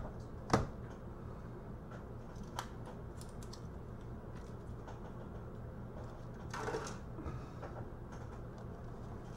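A laptop's plastic screen bezel being pried and handled with a flat pry tool: one sharp click about half a second in, a light tick a couple of seconds later and a short rustle about two-thirds of the way through, over a low steady hum.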